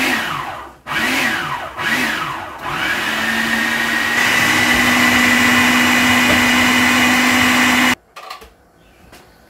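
Electric food processor chopping jalapeño peppers and a lemon toward a puree. It is pulsed in a few short runs, each rising and falling in pitch, then runs steadily for about five seconds and cuts off abruptly near the end.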